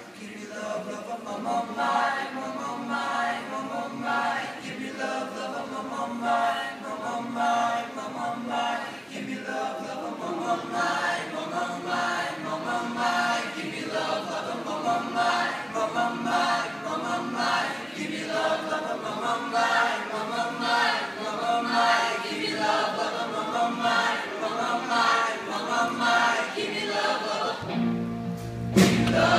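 Teenage boys' choir singing. Near the end a louder, deeper part comes in.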